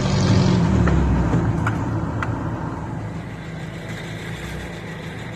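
Off-road vehicle engine running, louder at first and then easing off to a steadier run, with a few sharp clicks early on.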